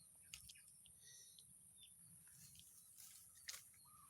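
Near silence: faint outdoor ambience with a steady high hiss, a few soft clicks and faint short chirps.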